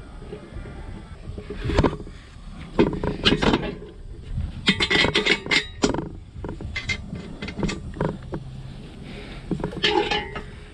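Tools and metal parts clanking, knocking and scraping in an irregular series of sharp strikes, during hands-on mechanical work on the truck.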